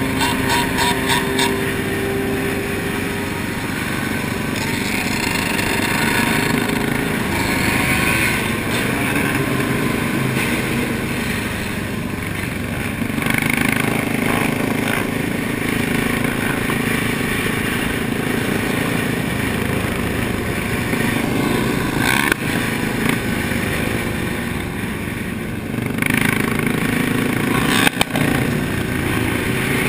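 Engines of a pack of sport motorcycles and quad ATVs running together on the move, heard from a rider's helmet over steady rushing noise. Two short sharp knocks, one about two-thirds of the way through and one near the end.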